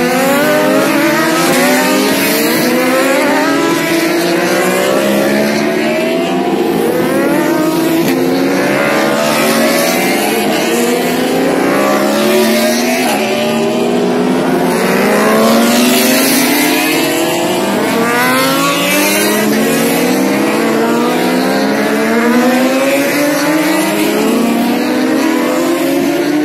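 Superbike racing motorcycles accelerating hard out of a tight corner one after another, several engines heard at once. Each engine note rises in pitch and drops back at every gear change, over and over.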